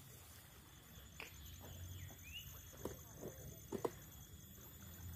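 Faint riverbank ambience: a few soft, sharp taps and knocks, one brief rising chirp a little after two seconds, and a low steady hum.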